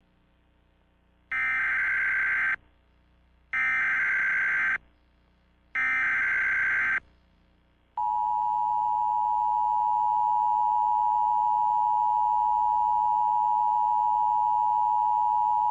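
Emergency Alert System SAME header: three data bursts of about a second each, a couple of seconds apart. From about eight seconds in they are followed by the steady two-tone EAS attention signal, the start of an emergency alert.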